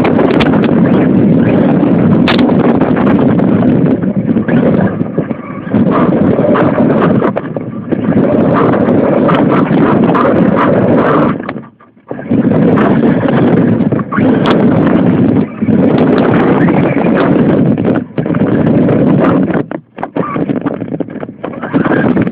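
Radio-controlled car driving in loud stretches, its drivetrain and chassis rattling and bumping right against the onboard cellphone microphone, with the noise dropping briefly now and then as the throttle eases, most deeply about halfway through.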